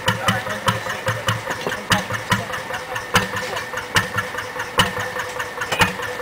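Slow-running engine of an old narrowboat idling with a steady, even knocking beat, a sharper stroke coming a little more than once a second.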